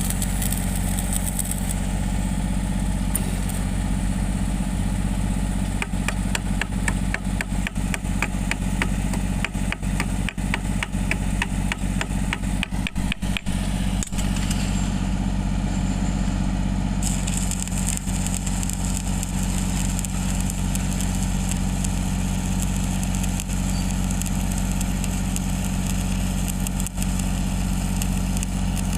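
Welding machine running with a steady, even hum, joined in the middle by a stretch of rapid crackling typical of stick welding on steel pipe.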